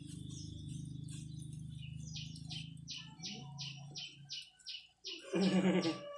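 A bird calling a quick series of about ten short, high notes, roughly three a second, over a steady low hum that fades out about four seconds in. Near the end a brief, louder, low-pitched voice-like sound is the loudest thing heard.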